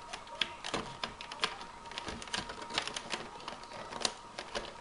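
Hands freeing a figure from its packaging: stiff clear plastic and twist ties give irregular small clicks and crinkles, a few louder ticks among them.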